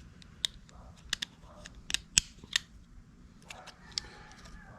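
Irregular sharp clicks and taps, about a dozen, with faint rustling between them, from small plastic parts of a repair kit being handled; the loudest click comes a little after two seconds in.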